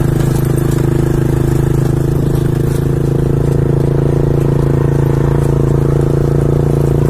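Motorcycle engine running steadily at an even speed while riding, with a constant low pitch that neither rises nor falls.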